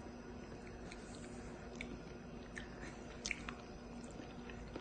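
A child eating with his hands: faint chewing and the soft squish of rice and vegetables worked between his fingers. A few light clicks come from about two seconds in, over a low steady room hum.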